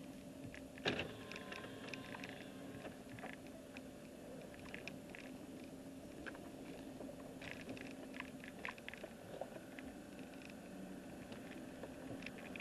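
Car cabin on the move: a steady low engine and road hum, with scattered small clicks and rattles throughout and one sharper knock about a second in.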